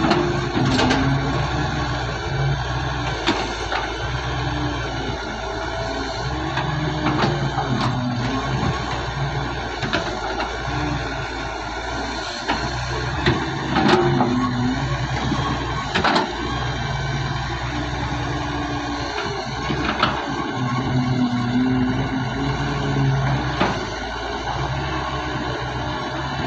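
Daewoo wheeled excavator working: its diesel engine runs steadily and bears down in surges of a few seconds as the hydraulic boom and bucket dig, with repeated sharp clunks of the bucket and digging gear against the dirt bank.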